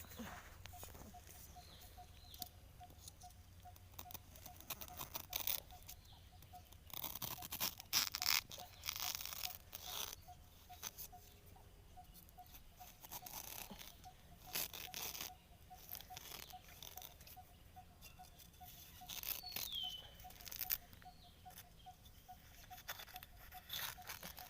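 Dry leaf litter and undergrowth crunching and rustling underfoot and by hand, with irregular snaps of twigs. A faint even ticking goes on behind, and a short falling whistle comes near the end.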